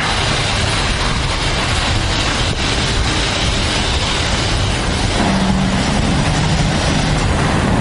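Steady road and vehicle noise, as from a car driving in traffic. About five seconds in, a low steady tone joins it for a couple of seconds.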